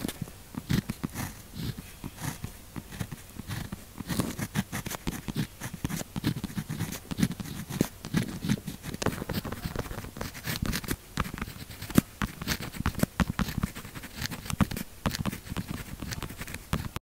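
Zebra pen tip scratching across paper in quick short writing strokes, with many small ticks as the pen lifts and lands. It cuts off abruptly just before the end.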